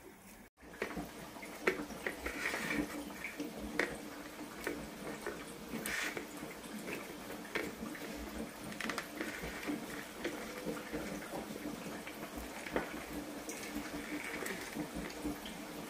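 Taro root slices frying in hot oil: a steady sizzle with many scattered sharp pops and crackles, starting abruptly about half a second in.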